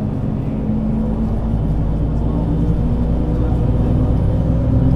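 Mercedes-Benz Citaro C2 city bus's diesel engine running under load, its pitch rising steadily through the second half as the revs climb.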